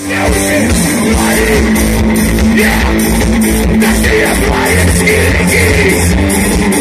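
Live rock band playing over the stage sound system, with electric guitar and drums, recorded from within the audience.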